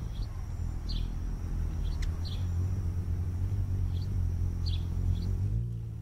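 Short, high hummingbird chip notes, irregularly about once a second, over a steady low hum that is the loudest sound. A single sharp click comes about two seconds in.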